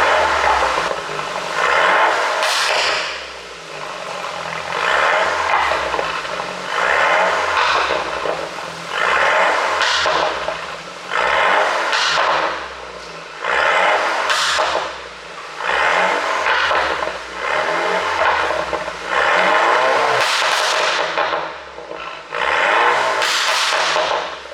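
BMW F10 528i's turbocharged four-cylinder engine revved about ten times in a row, each rev dropping away into a rattle of exhaust pops and crackles from its pop-and-crackle tune.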